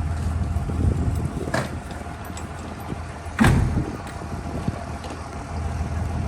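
Vehicle running with a steady low drone, and two sharp knocks or rattles, the second one about three and a half seconds in being the loudest.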